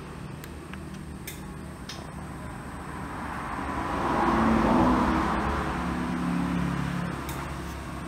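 A motor vehicle passing by, growing louder to a peak about halfway through and then fading, with a few faint clicks in the first two seconds.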